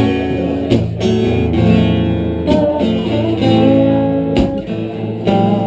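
Acoustic guitar playing: strummed chords with picked single notes ringing over them.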